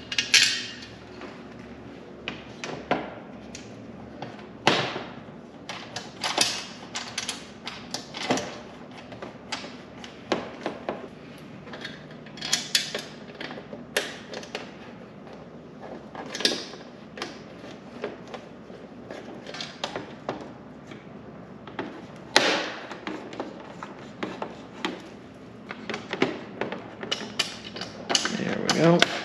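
Irregular clicks, taps and short scrapes as a plastic rear spoiler is pressed against a car's trunk lid and small screws are started into it by hand.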